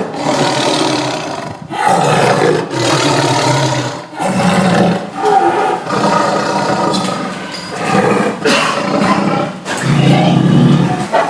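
Tiger roaring again and again, a loud rough roar every second or two with short breaks between.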